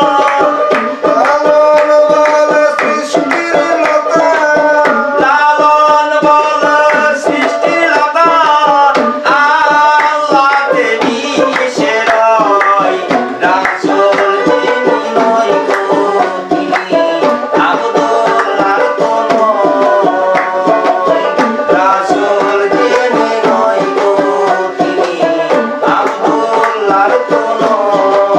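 Live Bengali Baul folk music: a hand drum keeps a steady rhythm under a running melody, with small percussion.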